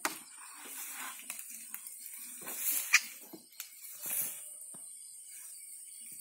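Dry bamboo sticks and leaf litter rustling and clattering as the pile is pushed and moved about, with a sharp crack about three seconds in.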